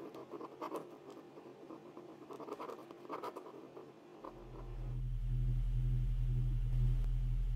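Pen scratching across paper in quick strokes, the sound of handwriting. About four seconds in it gives way to a steady low electric hum that grows louder and then holds.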